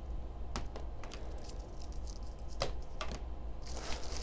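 Unboxing handling sounds: a few light clicks and rattles as coiled charging cables are pulled from a small cardboard box and set down on a cutting mat, then packaging rustling near the end.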